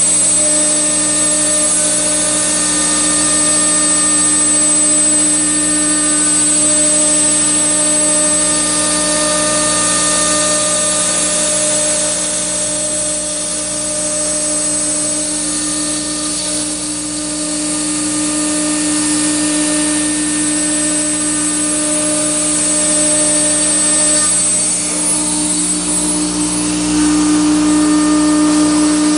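CNC router running steadily, its spindle giving a continuous whine over a hiss as it mills acrylic sheet. It gets a little louder near the end.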